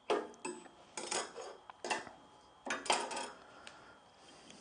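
Sliding bevel and timber being handled on a workbench: a handful of sharp metallic clinks and knocks with brief ringing.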